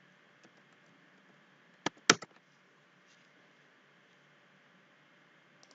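Two sharp computer-mouse clicks about a fifth of a second apart, about two seconds in, over a faint steady hiss.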